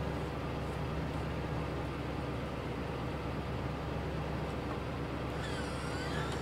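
A steady low engine rumble with a constant hum, holding one level throughout, with a few faint high chirps near the end.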